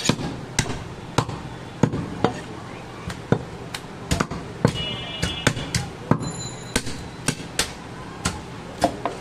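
Sharp wooden knocks of a butcher's knife striking a log chopping block while goat meat is cut, about two a second and unevenly spaced.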